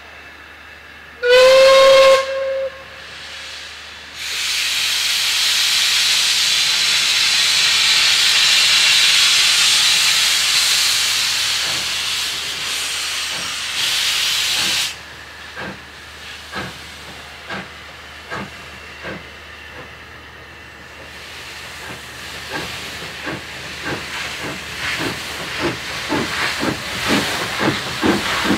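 Caledonian Railway 812 Class 0-6-0 steam locomotive No. 828 gives one short whistle blast about a second in, then a long loud hiss of steam. It then starts away with its exhaust beats, which begin slow and quicken steadily as the train gathers speed.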